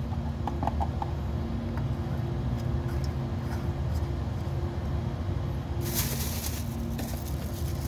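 An engine idling steadily in the background, with a short burst of hiss about six seconds in.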